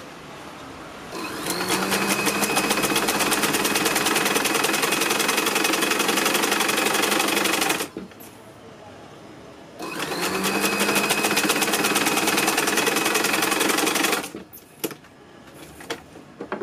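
Sewing machine stitching a seam in two runs of several seconds each, its pitch rising briefly as each run gets up to speed. A few sharp clicks of handling follow near the end.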